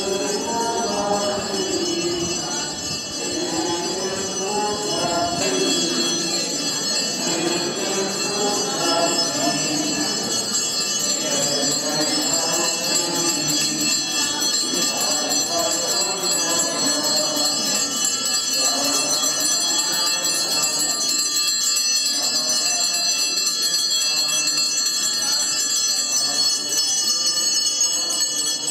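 Small hand bells ringing continuously, as rung by altar servers in a Corpus Christi procession, over a crowd of people singing a hymn together.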